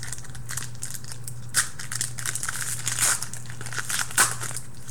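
Foil trading-card pack wrapper crinkling and tearing as it is opened and handled, with sharp crackles about a second and a half in and again near the end.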